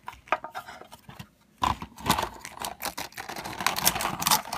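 Small model-kit engine parts being handled and set down on a carpeted surface: irregular light clicks and knocks, then denser rustling and scraping with clicks from about halfway through.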